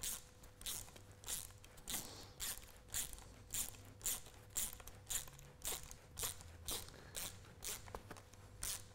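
A ratchet spanner worked back and forth, clicking in short runs of about two strokes a second, as a nylock nut is wound onto a track rod end.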